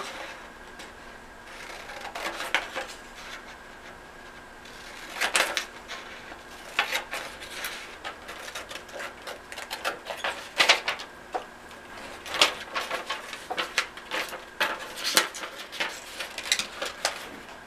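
Large scissors snipping through a paper template in a string of irregular short, sharp cuts. The snips are sparse for the first few seconds and come thick and fast from about five seconds in.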